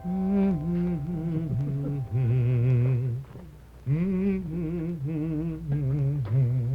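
A man's deep voice humming a string of long held notes with a strong vibrato, dropping to a lower note about two seconds in and rising again near the middle. The humming shows off the voice's resonance.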